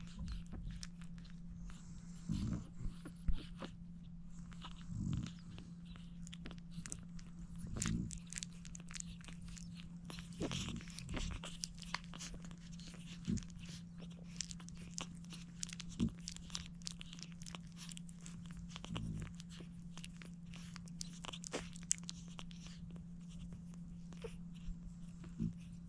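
Newborn French bulldog puppies suckling at their mother's teats: a stream of small wet sucking and smacking clicks, with a few louder short sounds in the first half, over a steady low hum.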